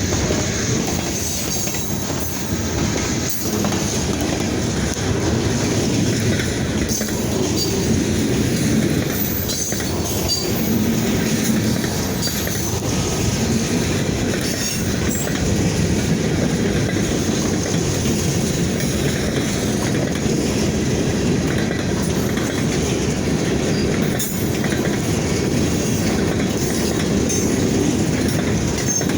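DeQueen Eastern Railroad freight train rolling past slowly, steel wheels clacking over the rail joints with scattered knocks and an occasional short wheel squeal over a steady rumble.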